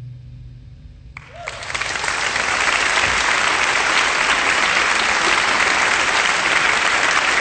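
A live audience breaking into applause about a second in, swelling quickly and then holding steady, as the last guitar chord of the song fades away.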